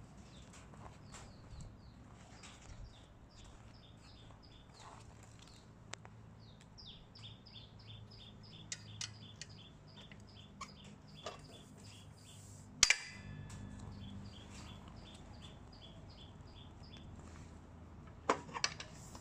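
Sharp metallic clicks and clanks from the steel parts of an AEG PSU1000 mitre saw leg stand being handled, the loudest about 13 seconds in with a short ring, two more near the end. A bird chirps in quick repeated short high notes throughout.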